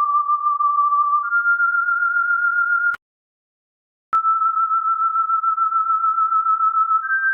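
A single pure electronic tone holding steady pitches just over a thousand hertz and stepping up in small jumps. It cuts off with a click about three seconds in, stops for about a second, comes back with a click and holds, then steps up again near the end.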